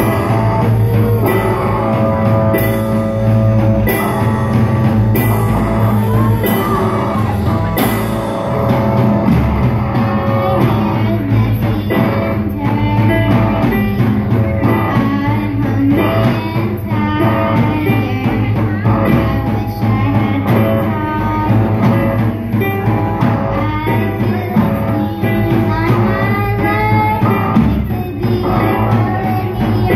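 A young girls' rock band playing live on drums, electric guitar and keyboard, with cymbal crashes repeating during the first few seconds. A girl sings lead into a microphone over the band from about nine seconds in.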